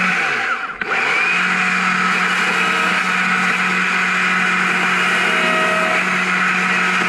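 Carving chainsaw running at high speed while carving a log. Its note dips briefly under a second in as the throttle eases, then comes straight back up to full speed.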